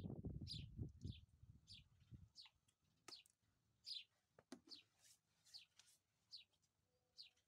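A small bird calling over and over, with short, high, faint chirps that fall in pitch, about one or two a second. A low rumble underlies the first two seconds.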